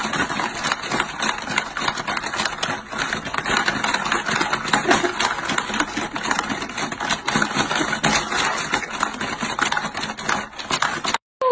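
Hungry Hungry Hippos board game clattering fast and continuously as hands hammer the plastic hippo levers. It cuts off abruptly near the end.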